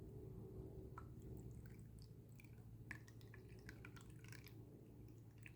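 Faint drips and trickling of water being added to a plastic microwave egg poacher to fill it to its guideline, with small scattered ticks over a low steady hum.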